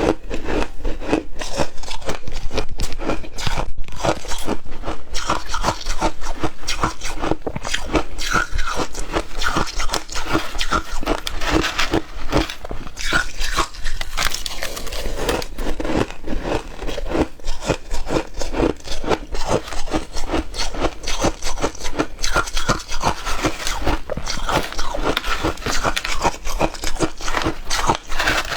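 Person biting and chewing ice, a dense, continuous run of crunches.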